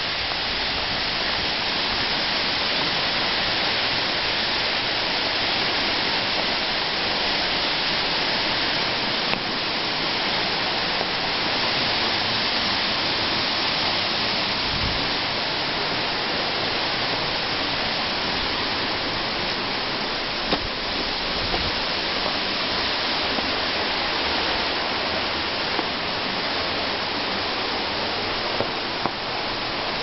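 Steady rush of a waterfall and its cascading mountain stream, with a few light ticks in the second half.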